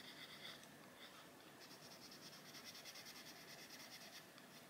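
Faint scratching of a Posca coloured pencil shading on paper in quick short strokes. It stops about half a second in and resumes a second later.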